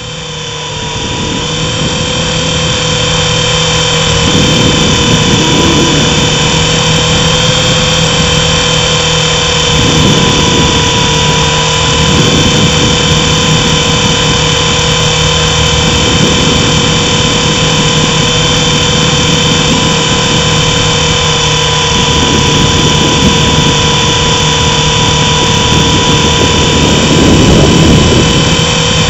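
Mini electric RC helicopter's motor and rotors heard from a camera mounted on the helicopter: a loud, steady high whine over a low rotor drone, building up over the first few seconds as it spins up and then holding steady in flight.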